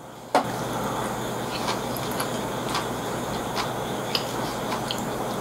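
Close-miked eating sounds: small scattered clicks and smacks of chewing and chopsticks over a steady hiss, with one sharp knock about a third of a second in.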